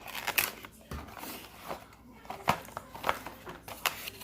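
A small cardboard perfume box being opened and its packaging handled by hand: a string of sharp clicks, taps and crinkly rustles of card and wrapping at uneven intervals.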